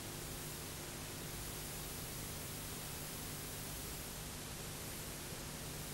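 Steady VHS tape hiss with a faint low hum and no programme sound: a blank stretch of the recording between an advert and the film.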